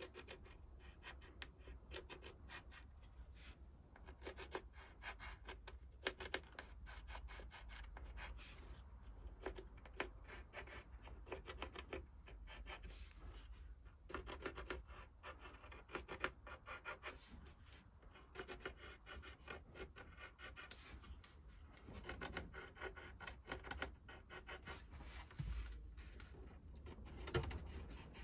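Pencil scratching on the wooden planking of a model ship hull in many short strokes, marking out lines. Faint throughout.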